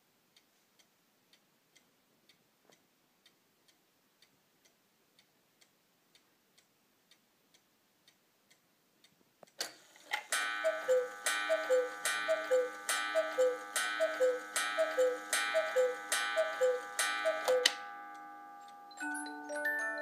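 Black Forest cuckoo clock: its movement ticks faintly about twice a second. About ten seconds in it clicks and begins calling the hour, a run of falling two-note cuckoo calls about one a second with ringing behind them. Near the end its music box starts a tinkling tune.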